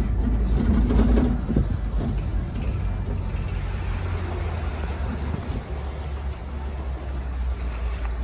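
Safari tour truck driving along, its engine and road noise making a steady low rumble, with a few knocks and rattles about a second in.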